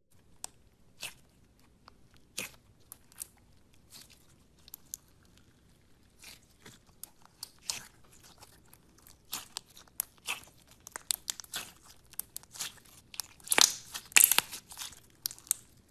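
Clear slime packed with plastic charms, beads and sequins being squeezed and pressed by hand, giving sharp crackling pops and crunches. They come sparsely at first, then thicker and louder in the last few seconds.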